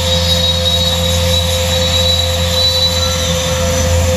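WARSM-DP5000L computer-controlled panel beam saw running in automatic mode: a steady mechanical hum with a thin high whine over it.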